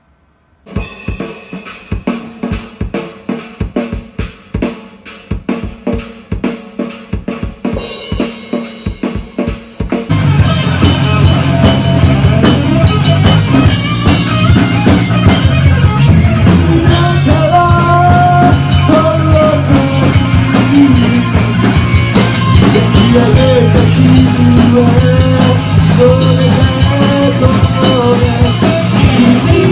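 A drum kit played alone, kick and snare strokes in a steady pattern of about two hits a second. About ten seconds in, a full rock band track comes in much louder, with bass and melody over the drums.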